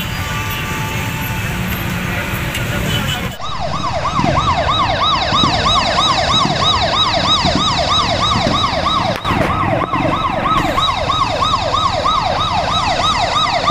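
Traffic noise from a packed crowd of motorcycles; then, about three seconds in, a loud vehicle siren takes over, sweeping rapidly up and down about two and a half times a second.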